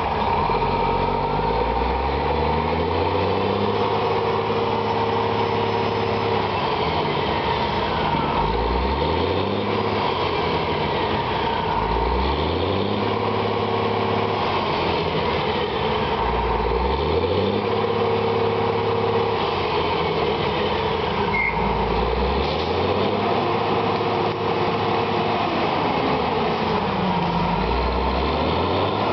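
Heavy diesel truck engine revving repeatedly: about six times the pitch rises quickly, holds high for a few seconds, then drops back.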